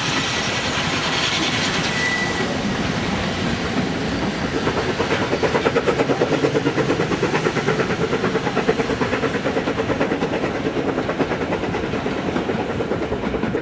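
Steam-hauled train passing close by: steam hiss from the locomotive, then a fast, even beat as the carriages roll past.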